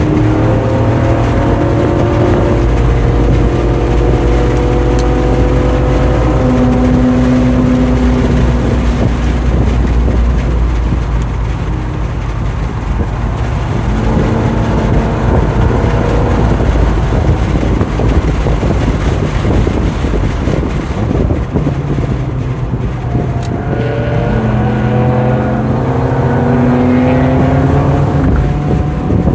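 Lincoln Mark VIII's 4.6-litre DOHC V8 running hard on a road course, its note climbing under throttle and dropping back as it lifts for corners. It goes quieter through the middle, then rises again near the end, over a steady rush of wind and road noise.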